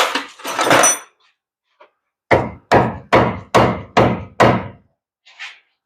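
A hammer striking metal: six sharp blows, about two a second, after a brief rushing noise in the first second.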